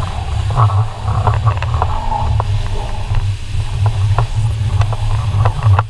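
Jet ski running at speed over open water, its engine and hull noise mixed with heavy wind buffeting on the craft-mounted microphone. Short sharp ticks of spray and water slaps come through all along.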